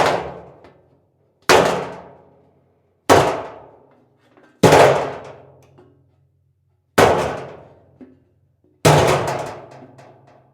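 Two metal objects struck together six times, each a sharp clang that rings and fades over about a second. The strikes come about every one and a half to two seconds, and the last is followed by a brief rattle.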